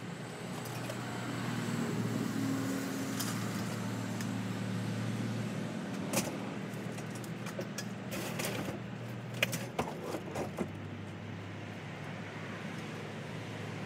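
A vehicle engine idling, a steady low hum whose pitch shifts slightly about ten seconds in, with a few light clicks and rattles around six and nine seconds in.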